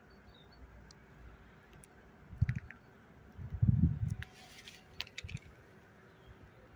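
Handling noise from gloved hands holding and turning a small piece of fresh wild comb: two soft low thumps in the middle, then a few light clicks.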